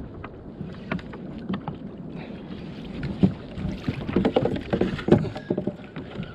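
Sounds aboard a fishing kayak at sea: water sloshing against the hull with irregular knocks and clatter. These are busiest and loudest from about four to five and a half seconds in.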